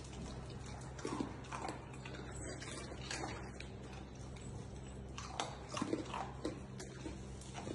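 A dog eating from a metal bowl: irregular wet chewing and smacking, in short clusters about a second in, around three seconds in and again between five and six and a half seconds in, over a steady low hum.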